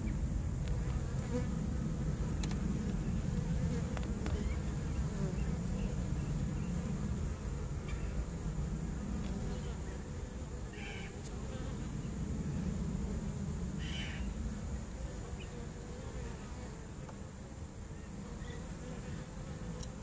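Honey bees buzzing around the entrance hole of a cardboard swarm trap that a swarm has moved into, a steady low hum that swells and eases. A few brief high chirps sound over it.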